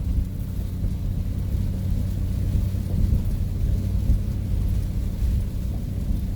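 Steady low drone of a vehicle's engine and tyres on the road, heard from inside the cab, with a constant hum under it.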